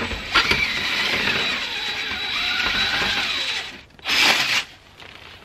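Cordless drill spinning a SootEater rotary chimney-cleaning rod, whose weed-eater-string whips turn inside a stainless steel chimney pipe. The motor speed wavers, stops about three and a half seconds in, and a short loud burst follows about four seconds in.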